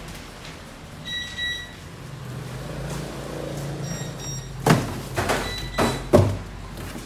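Cardboard box being handled and folded, giving four sharp knocks and scrapes in the second half, over a steady low hum; a short high beep sounds about a second in.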